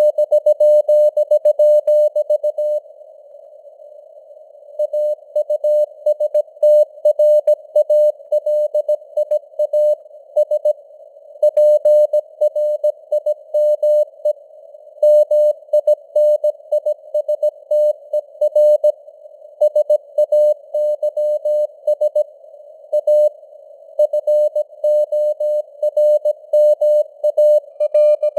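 Morse code (CW) sent at 17 words per minute as a keyed tone of about 600 Hz, over a steady hiss of simulated radio noise. The tone breaks off for about two seconds near the start, with shorter gaps between the other groups.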